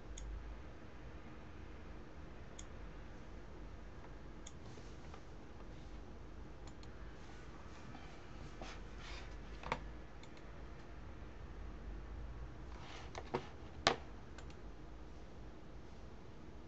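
Scattered faint clicks of a computer mouse over a low steady hum. The sharpest click comes about ten seconds in, and two come close together near fourteen seconds.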